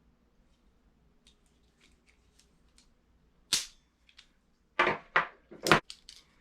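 Hard clacks and knocks of lock and handle hardware being handled: light clicks at first, one loud knock about three and a half seconds in, then three more in quick succession near the end.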